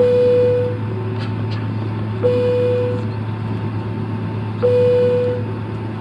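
Airliner cabin chime sounding three times, single tones about two and a half seconds apart, each ringing under a second and fading, over the steady low hum of the aircraft cabin.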